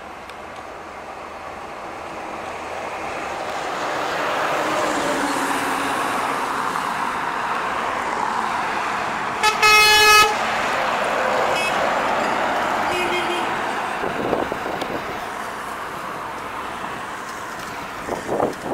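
Loaded Volvo semi-truck driving past at road speed: engine and tyre noise swell as it approaches and ease off as it leaves. A loud horn blast of under a second comes about halfway through as it draws level, followed by two fainter short tones.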